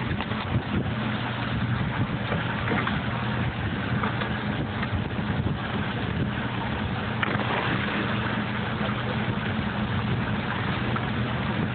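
Steady hum of the FLUPSY's upweller pump motor running, with water rushing up through the wells. Now and then there is a light knock.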